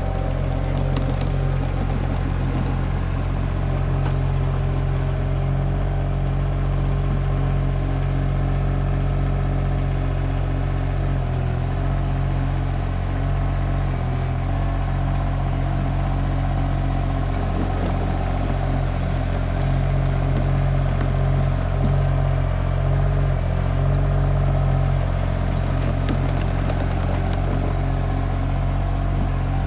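Mini skid steer's engine running steadily as the machine works its bucket, with a few brief dips in the engine note and occasional knocks.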